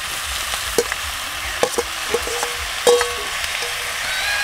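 Chicken frying and sizzling in a black iron kadhai as chopped tomatoes are scraped in from a steel bowl with a metal ladle. The ladle clinks against the steel vessels about five times, each clink ringing briefly, the loudest about three seconds in.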